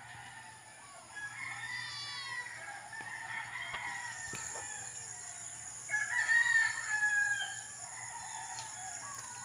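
Roosters crowing: two long crows, the second, about six seconds in, the louder.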